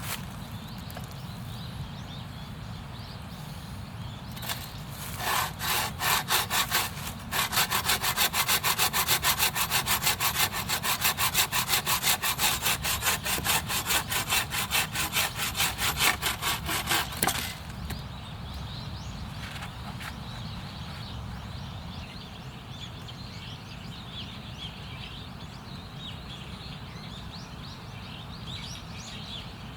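Hand saw cutting wood: a few starting strokes, then about ten seconds of steady back-and-forth strokes that stop abruptly.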